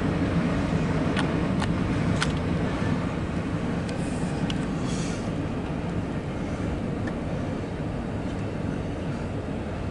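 An intermodal freight train's cars rolling past, a steady low rumble with a few sharp clicks in the first couple of seconds, easing slightly after about three seconds.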